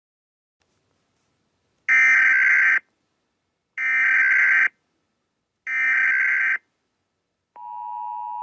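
Emergency Alert System SAME header: three bursts of digital data tones, each about a second long with a second's gap between them, which encode the alert for broadcast receivers. Near the end the steady two-tone EAS attention signal begins, which announces the spoken alert message.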